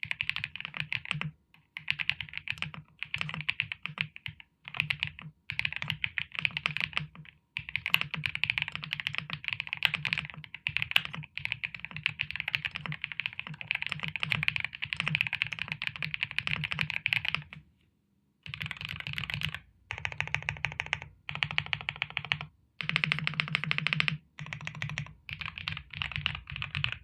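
Weikav WK75 gasket-mounted mechanical keyboard with Moon White switches being typed on fast, in bursts of rapid keystrokes broken by short pauses, with one longer pause about two-thirds of the way through.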